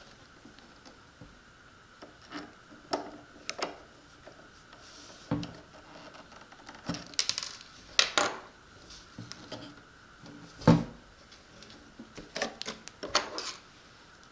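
An RC boat hull, a screwdriver and small screws being handled on a wooden tabletop: scattered clicks, taps and knocks, the loudest a thump about ten and a half seconds in.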